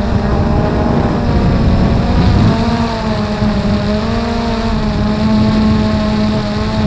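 Blade 350 QX2 quadcopter's brushless motors and propellers humming steadily in flight, heard from the camera on board, the pitch wavering slightly, over a low rumble.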